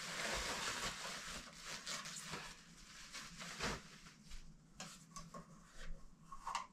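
A thin plastic bag rustling and crinkling as it is pulled off a Keurig coffee maker, followed by scattered light clicks and knocks as the machine's plastic parts are handled.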